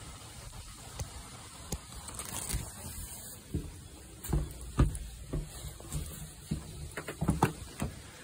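Footsteps on wooden decking boards, irregular knocks about two a second through the second half, over a low steady rumble.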